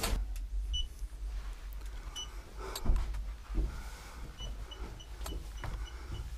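Footsteps and scuffing over loose stone rubble, with knocks and a low handling rumble; the strongest knock comes about three seconds in. A run of short, thin high pips sounds near the end.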